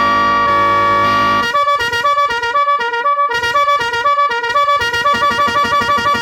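Electronic multi-tone 'echo' horn with 18 sound modes, sounding a steady held tone, then about a second and a half in switching to a fast melody of stepping notes, which turns into a quick, even two-tone warble near the end.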